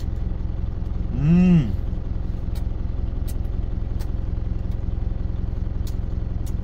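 Truck engine idling steadily, left running after highway driving to let it cool down. About a second in, a man gives a short, pleased closed-mouth "mmm" that rises and falls in pitch as he chews.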